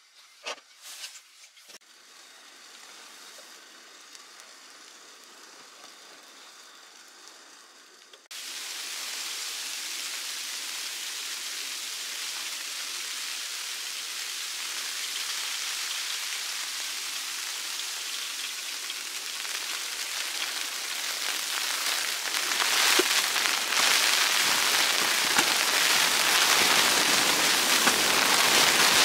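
Hot water poured from a kettle into a paper-filter coffee dripper: a steady splashing trickle that starts suddenly about eight seconds in and grows louder near the end. A few light handling clicks come before it.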